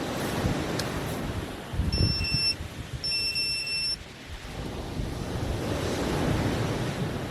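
Sea surf washing onto the beach with wind buffeting the microphone, and two high, steady electronic beeps about two and three seconds in, the second one longer.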